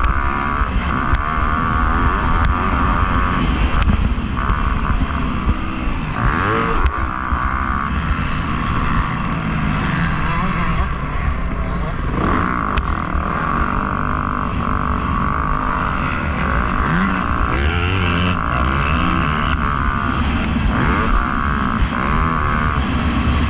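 Motocross bike engine running hard, its pitch rising and falling several times as the throttle opens and closes.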